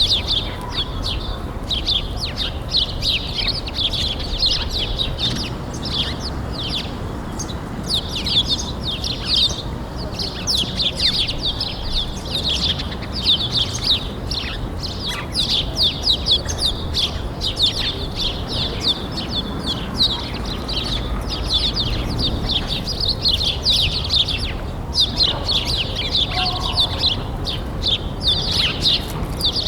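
Many small birds chirping and tweeting in a dense, continuous chorus of quick, high notes, over a steady low background noise.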